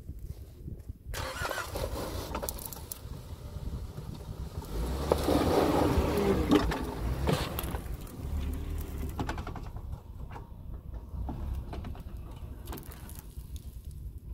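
Suzuki Jimny's 1.5-litre four-cylinder petrol engine running at low revs as the small 4x4 crawls over dirt mounds, growing louder for about two seconds midway through.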